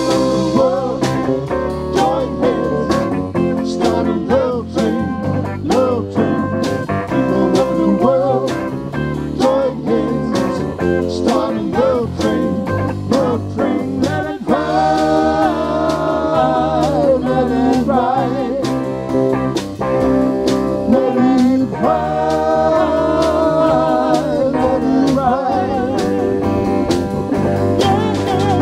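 Live band of electric guitar, bass guitar, drum kit and keyboard playing a song with a sung lead vocal over a steady drum beat.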